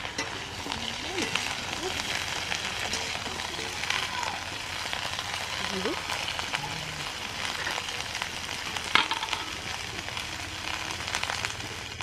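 Cauliflower pieces frying in hot oil: a steady sizzle with scattered crackles, and one sharp click about nine seconds in.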